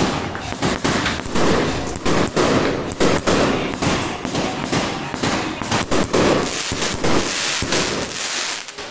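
Fireworks going off in rapid succession: a dense, loud barrage of bangs and crackling that thins out about eight seconds in.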